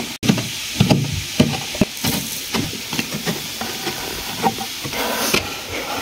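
Plastic toy horse figures being hopped and pushed along an arena floor at a pretend canter: irregular light thuds and scuffing rustle, with hand-handling noise.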